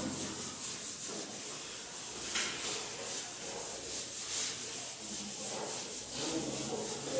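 Chalkboard eraser scrubbing chalk off a blackboard in repeated back-and-forth strokes, a dry rubbing sound.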